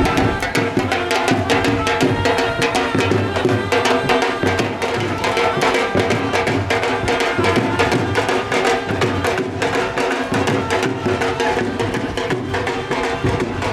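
Dhol drums played live in a fast, driving bhangra rhythm, with a tune of held notes running above the beat.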